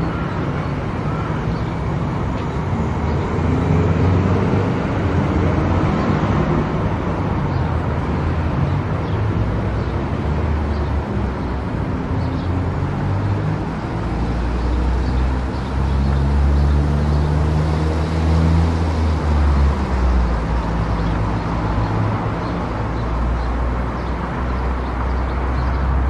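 A car driving at highway speed: steady road and tyre noise under a low engine drone that swells for a few seconds about two-thirds of the way through.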